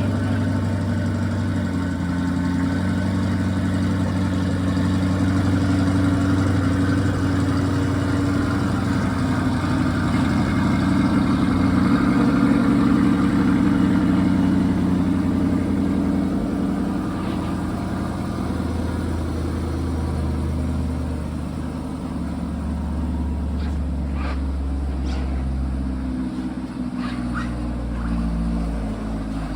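A car engine idling steadily, its low hum shifting slightly about halfway through and again near the end, with a few light clicks late on.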